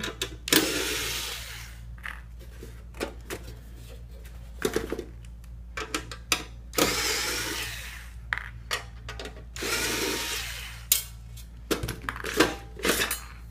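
Cordless electric screwdriver backing screws out of a DVD drive's metal mounting, running in a few bursts about a second long with clicks and small metal rattles between them.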